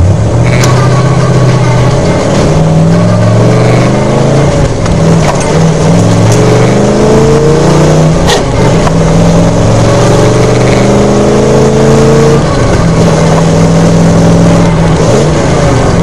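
Mildly built 283 small-block Chevy V8 in a 1995 S10 pickup, heard from the cab while driving, pulling and rising in pitch several times with short breaks between shifts, then running steadier near the end. The engine has a fuel-delivery problem: its fuel pump screen is completely clogged.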